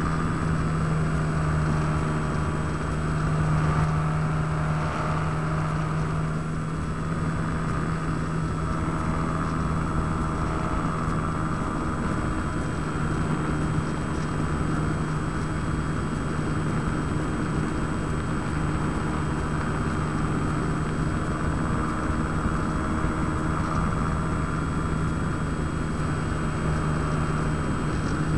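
Electric motor and propeller of a Crash 3D indoor RC aerobatic plane, picked up by a keychain camera on the plane: a steady motor drone with a higher whine that shifts a little in pitch with the throttle.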